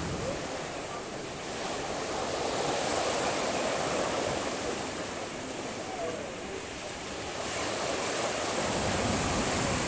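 Small waves breaking and washing up over a concrete ramp at the water's edge, the surf swelling and easing as each wave comes in.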